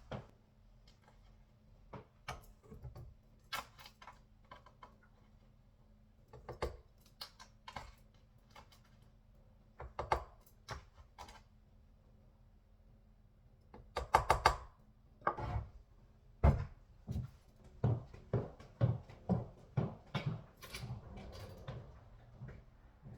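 Scattered knocks, clunks and clicks of kitchen items being handled and set down, over a faint steady hum; the knocks come closer together in the last third.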